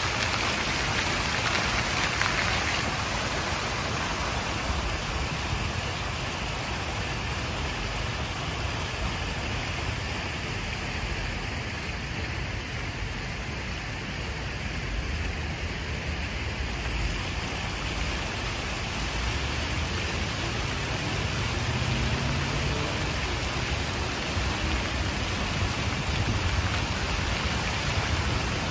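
Fountain jets splashing steadily into the pool, a rain-like hiss, growing a little fainter about halfway through and coming back near the end, with a low rumble underneath.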